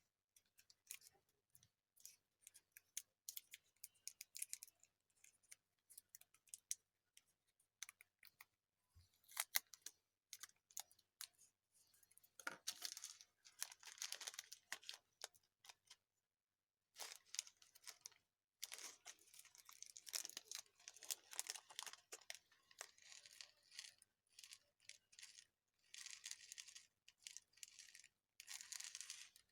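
Blue fruit slime being squeezed and poked: a quiet, continuous run of small sharp clicks and crackles, thickening into longer crinkly stretches a third of the way in and again in the second half.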